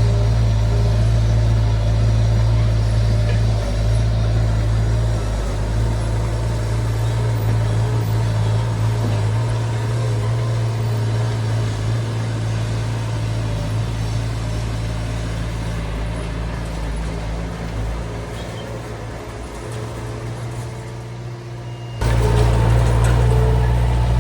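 D20 bulldozer's diesel engine running with a steady, loud drone. It eases off somewhat and grows quieter, then comes back abruptly louder near the end.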